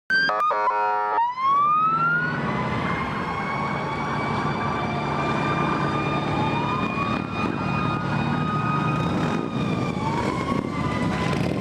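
Fire engine siren: a short pulsing blast, then a wail that rises over about a second and holds a steady high tone, sagging slightly near the end. Vehicle engines rumble underneath.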